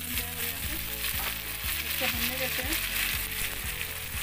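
Tomatoes and chillies, freshly added, sizzling steadily in hot oil in an iron kadai. Background music with a steady beat runs underneath.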